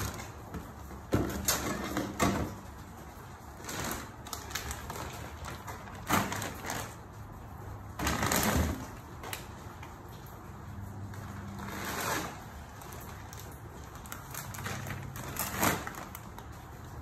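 Groceries being loaded into a wire shopping cart: crinkling plastic food bags and a plastic milk jug being set down among the other items, in several separate bursts, the loudest about eight seconds in.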